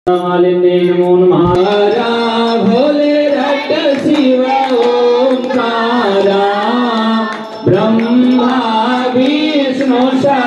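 A devotional aarti song: a voice singing a flowing melody over steady musical accompaniment.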